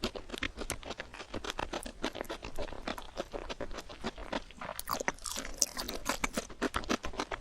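Close-miked mukbang eating sounds played at double speed: quick wet chewing with a dense run of short clicky mouth sounds, several a second.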